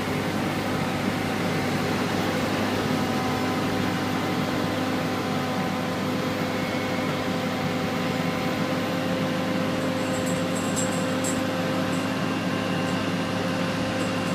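Diesel engines of asphalt paving machines, a Vögele paver and material feeder, running steadily as a constant hum with several steady tones. A few faint high clicks come about ten seconds in.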